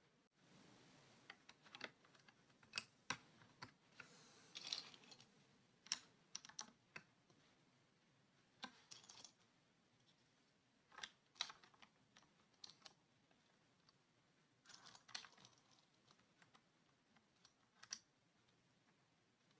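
Scattered, irregular clicks and clacks from a Vortex VX8 mechanical keyboard, some in small clusters, with a short rustle about four to five seconds in.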